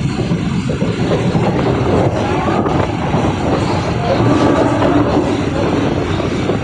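A Mumbai suburban local electric train running along the track: a steady, loud rumble of wheels and carriages, with a sharp click about two and a half seconds in.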